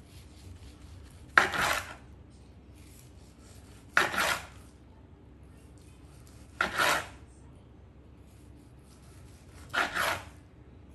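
Long slicing knife cutting through a smoked brisket's crusty bark down to a wooden cutting board: four slices about every three seconds, each a short rasping stroke.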